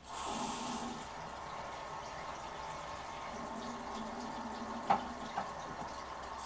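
Bathroom sink tap turned on and left running, a steady stream of water into the basin that starts abruptly. Two light clicks come about five seconds in.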